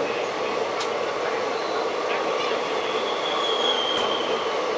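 Steady rushing rail noise of a passenger train of red-and-grey coaches passing close on the adjacent track, heard from another moving train. A thin, high wheel squeal comes in about three seconds in and fades before four, and a couple of sharp clicks from wheels crossing rail joints are heard.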